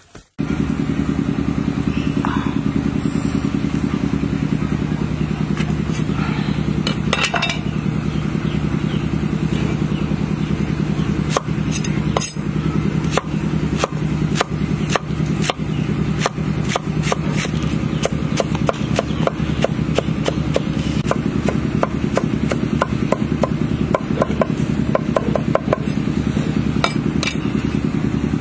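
A meat cleaver chopping Chinese cabbage on a wooden chopping board, with regular sharp knocks about two a second starting about a third of the way in and coming faster near the end. Underneath is a loud, steady, low engine-like hum.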